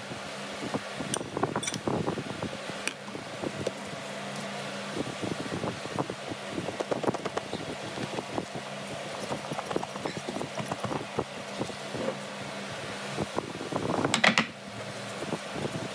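Kitchen handling noises: rustling and light irregular clicks as a gloved hand works salad leaves in a glass bowl and plastic meal-prep containers are handled. A louder rustle comes about fourteen seconds in. A steady low hum runs underneath.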